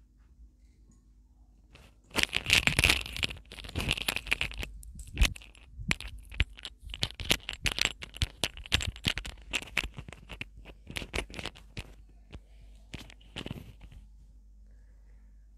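Cloth rustling and scratching close to the microphone, in irregular bursts with sharp clicks, as a head scarf is arranged by hand. It dies away near the end over a faint low hum.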